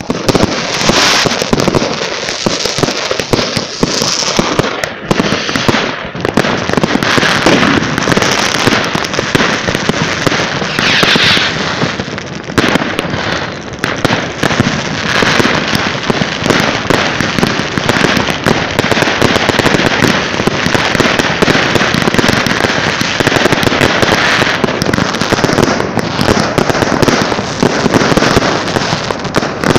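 Fireworks going off without a break: dense, overlapping bangs and crackling from shells bursting overhead and batteries firing from the ground.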